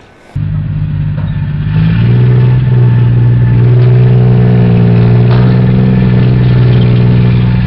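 Heavy military vehicle engine running loud; it cuts in sharply, then its note steps up about two seconds in as it revs and holds there.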